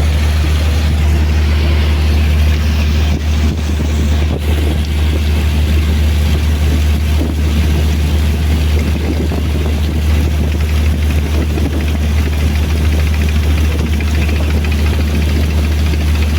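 River boat's engine running steadily under way, a strong, unbroken low drone.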